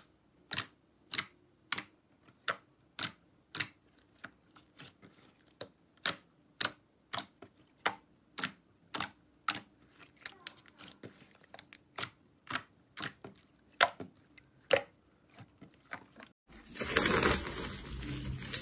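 Sharp wet clicks and pops from fingers pressing into and lifting off a thick sheet of glossy slime, about two a second, some louder than others. About three seconds before the end, a crinkly rustle of cling film being pulled on a covered tub of slime takes over.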